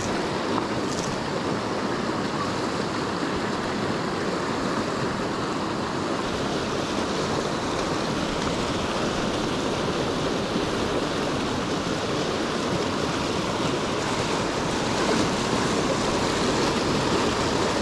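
Mountain stream running high and fast, a steady rush of water over rocks and riffles.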